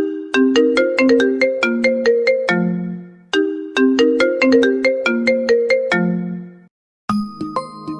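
A smartphone ringtone: a short melody of struck, quickly fading notes, played twice over. After a brief gap, a different ringtone with brighter, longer-ringing tones starts about seven seconds in.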